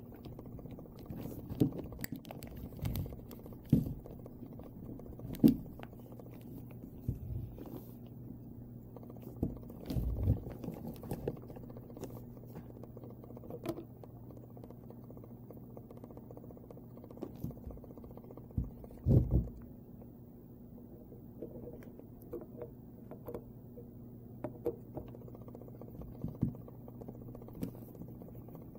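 Handling noises from a Craftsman 357 CO2 pellet revolver: scattered small clicks and knocks as it is opened and its 10-shot rotary pellet clip is taken out and refitted, with a few duller thumps, the loudest about ten and nineteen seconds in. A steady low hum runs underneath.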